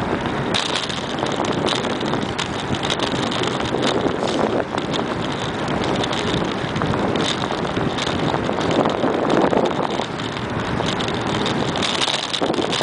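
Wind buffeting the microphone of a camera mounted on a moving bicycle, mixed with the bicycle's tyres running on pavement. Frequent small knocks and rattles come through as the bike rolls over the path.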